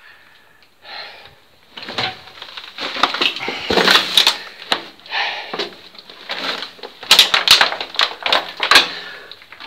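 Footsteps scuffing and crunching over litter and debris on the floor of a small underground concrete tunnel, with sharp clicks and crackles. It is quiet for about the first two seconds, and the clicks come thickest near the end.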